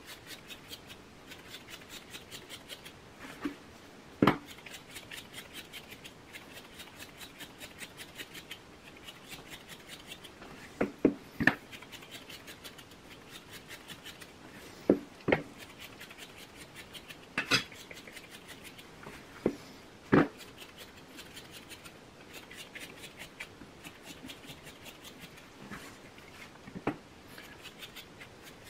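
A stripping knife raking and plucking through a West Highland White Terrier's harsh coat during hand-stripping: quick, even, scratchy strokes, several a second. A few sharper clicks stand out among the strokes.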